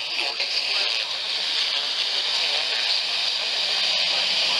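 Radio receiver static: a loud, steady hiss with a voice faintly heard beneath it, the sign of poor reception.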